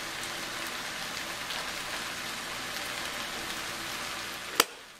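Cut okra frying in a stainless steel pan: a steady sizzling hiss with faint crackles. A single sharp click comes near the end, just before the sound cuts off.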